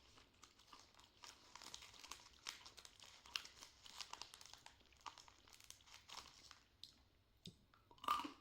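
A crunchy sugar-coated karinto sweet being chewed close to the microphone: faint, rapid crisp crackles and crunches.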